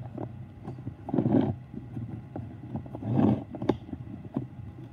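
Light clicks and knocks of a handheld phone camera being moved and handled, over a low steady hum.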